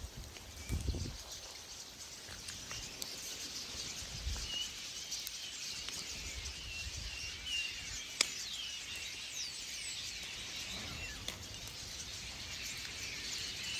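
A large flock of birds calling together in a dense, high-pitched chatter of chirps, with one sharp click about eight seconds in.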